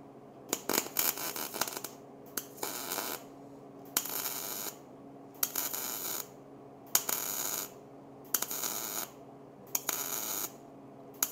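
MIG welder laying a row of short spot welds on steel square tubing: about seven bursts of arc noise, each under a second long, roughly one every second and a half.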